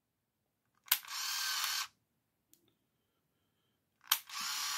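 Compact 35mm point-and-shoot film camera taking two shots about three seconds apart: each a sharp shutter click followed by about a second of the motor whirring as it winds the film on to the next frame.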